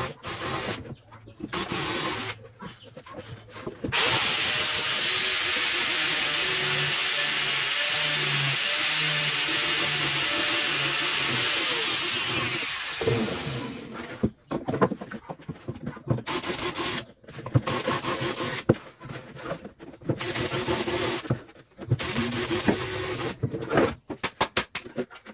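A power drill runs steadily for about eight seconds, starting about four seconds in and then winding down. Before and after it come short, choppy scraping and rubbing sounds from hand work on the screen frame.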